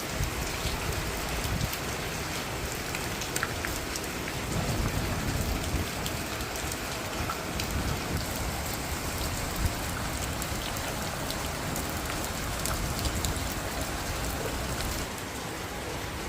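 Steady rain falling, with scattered sharp ticks of drops hitting surfaces. It grows a little louder for a couple of seconds about five seconds in, and eases slightly near the end.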